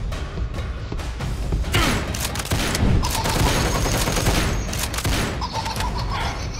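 Rapid-fire gunfire sound effects, shots coming thick and fast and heaviest from about two seconds in, over background music with a steady low beat.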